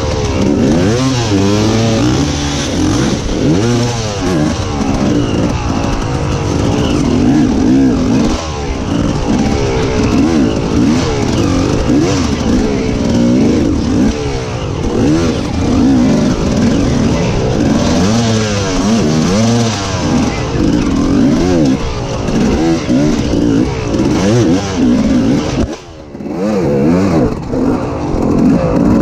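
KTM enduro motorcycle engine heard from a camera on the bike, revving up and down in quick throttle bursts as it picks its way over rocks. Near the end the engine note drops away for a moment, then comes back.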